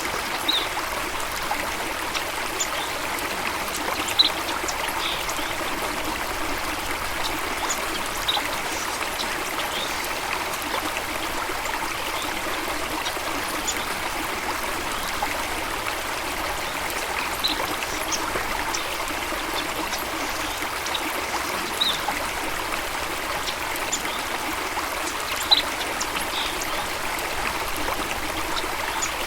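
Steady flowing water, with short, high bird chirps scattered every few seconds over it.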